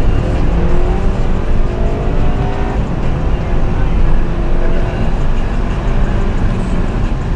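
Acura TSX wagon's 2.4-litre K24 four-cylinder engine pulling under acceleration, heard from inside the cabin over a steady low road rumble; its pitch climbs over the first three seconds, then settles.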